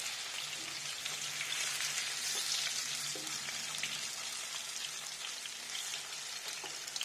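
Masala-coated chicken pieces deep-frying in hot vegetable oil, a steady sizzle with small spattering crackles. A wooden spatula scrapes and nudges the pieces as they are turned in the pan.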